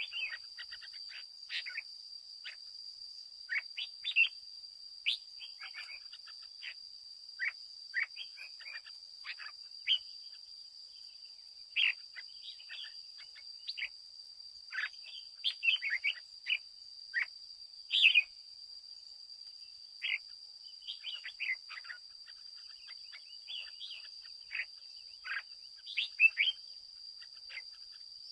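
Red-whiskered bulbul chirping and singing in short whistled phrases, a few every couple of seconds, over a faint steady high-pitched whine.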